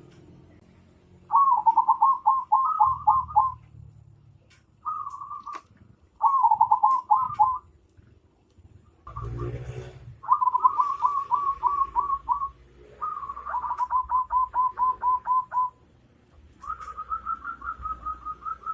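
A bird calling in repeated phrases of quick, evenly spaced notes, each phrase lasting one to two seconds with short pauses between. There is a brief noisy thump about halfway through.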